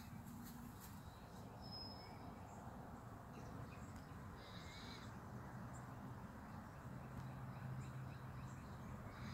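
Faint outdoor ambience: a steady low rumble, with a few short, faint bird calls near the start and again about halfway through.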